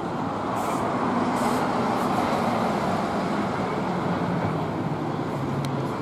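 Motor-vehicle engines running, with a low droning hum whose pitch shifts slowly, over a steady wash of road-traffic noise that swells slightly about a second in.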